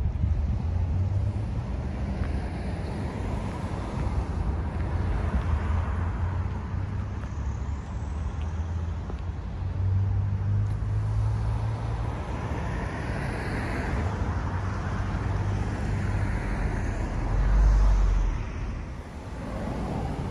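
Passing road traffic: a steady low rumble with vehicles swelling by and fading, the loudest one near the end.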